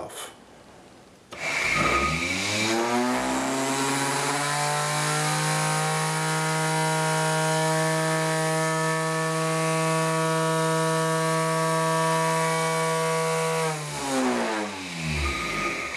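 Small router motor spinning a homemade generator: a whine with several tones that rises in pitch as it speeds up, holds steady for about eight seconds at speed, then falls in pitch as it winds down near the end.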